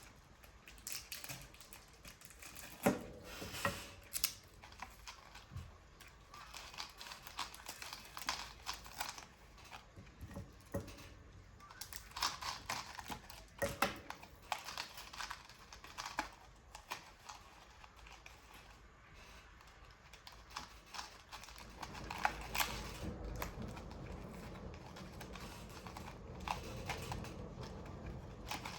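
Irregular small taps, clicks and light rustling of paper and card being handled and worked by hand. About two-thirds of the way through, a low steady rumble starts underneath.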